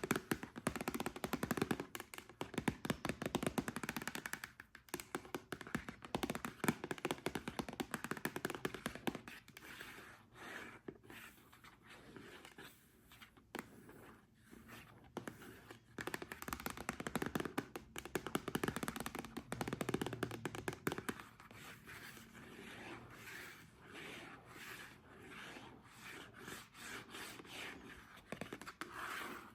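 Long fingernails tapping and scratching on a surface: fast runs of tapping, loudest near the start and again around the middle, alternate with quieter stretches of scratching.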